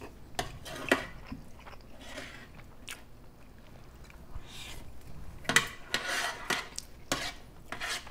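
Close-up chewing of chili and rice, with a spoon scraping and clinking against the serving tray as leftover rice is gathered.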